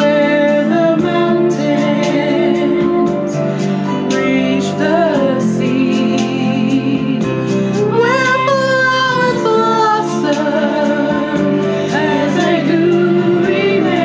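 A woman singing over a steady instrumental backing, holding long notes with vibrato; about eight seconds in her voice swoops up into a long, wavering high note.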